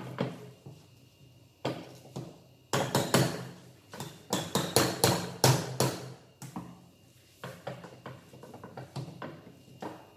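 Metal spoon scraping and knocking against a stainless steel bowl as a thick mix of minced beef and mashed potato is stirred, in uneven strokes that come fastest in the middle.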